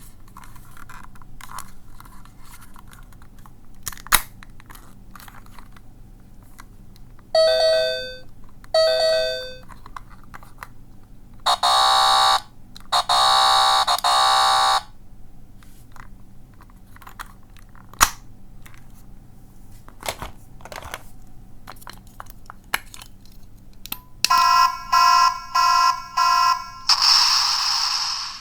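Small electronic sound-effect toy from a capsule machine, clicked repeatedly to play different sounds from its tiny speaker: two short chime-like tones about eight seconds in, then a harsh buzzer for about three seconds, and near the end four quick beeps followed by a hissing tone.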